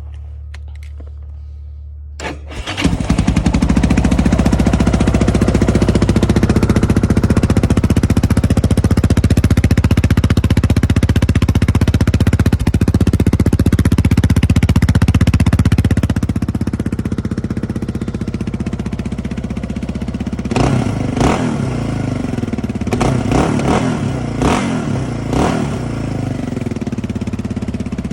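2005 Yamaha Raptor 660R ATV's single-cylinder four-stroke engine running through a slip-on Lexx exhaust. It comes up loud about three seconds in and holds high for a long stretch, then drops to a lower, steadier run with a handful of quick throttle blips near the end.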